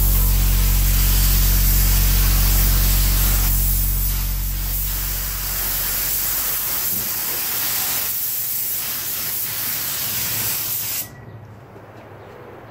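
Paint spray gun hissing steadily as mixed paint is sprayed onto the trailing arms, stopping abruptly about eleven seconds in. Underneath, a low steady machine hum dies away around six seconds in.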